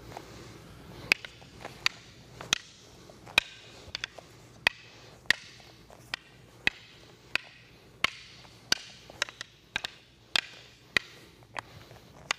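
Rattan escrima sticks clacking together in a quick, uneven series of sharp strikes, about two a second, each with a short ring. A single stick is trading strikes and blocks against a pair of sticks in a sumbrada flow drill.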